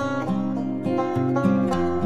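Background instrumental music on plucked strings, with a run of notes changing every fraction of a second.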